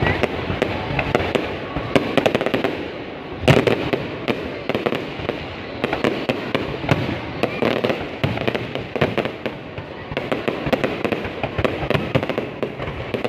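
Fireworks going off: a dense, continuous run of bangs and crackling pops, with a burst of louder reports about three and a half seconds in.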